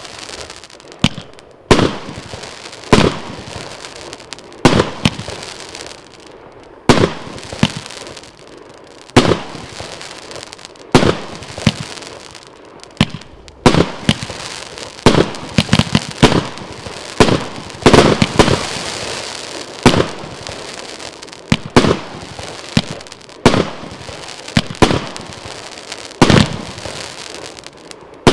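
Pangu Fireworks 'Yangtze River' firework going off: a long run of loud bangs, roughly one a second, each with a short tail, bunching into quicker clusters around the middle.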